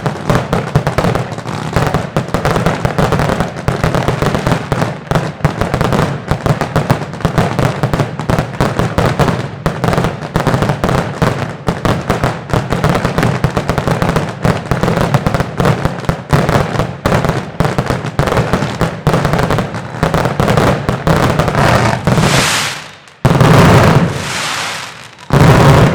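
Neighbourhood New Year's Eve fireworks and firecrackers going off in a dense, continuous crackle of bangs. Near the end come two much louder, close blasts.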